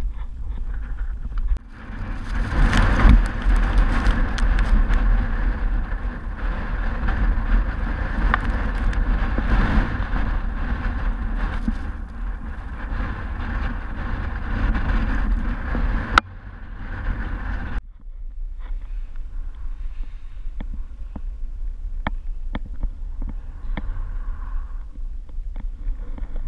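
Strong wind buffeting an action camera's microphone: a heavy low rumble that gusts and eases, dropping away for a couple of seconds about two-thirds through, with a few sharp clicks near the end.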